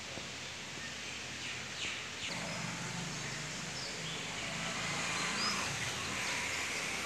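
Steady hiss of outdoor background noise, with a few faint, brief bird chirps.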